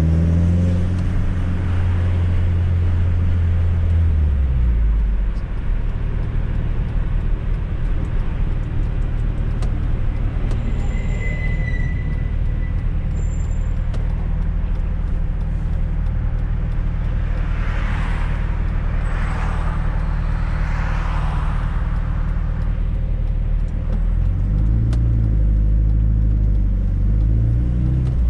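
Fiat Coupe 16V Turbo's engine while driving: pulling strongly at first, easing to a steady lower drone about five seconds in, then rising in pitch as it accelerates again near the end.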